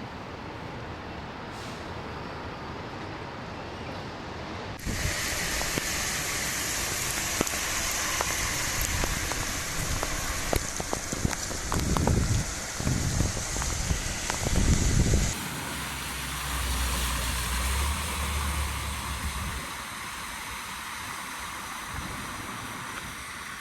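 Storm ambience of wind and rain noise in three spliced clips, changing abruptly twice. The middle clip is louder, with several heavy low rumbles near its end.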